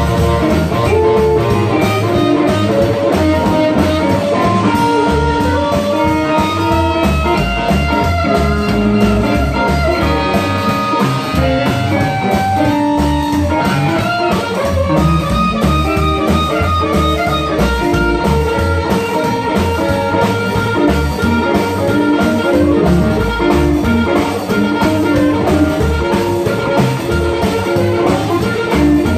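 Live blues band playing an instrumental passage: amplified harmonica cupped to a microphone, with upright double bass, electric guitar and drum kit keeping a steady boogie beat.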